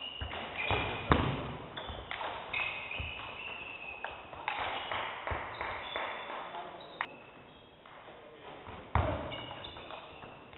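Table tennis rally: the ball clicks off the bats and the table at short, uneven intervals, with short high squeaks from shoes on the hall floor. Two louder thuds stand out, about a second in and near the end.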